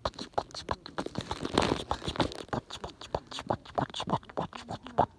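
Wood bonfire crackling: a run of irregular sharp snaps and pops, several a second.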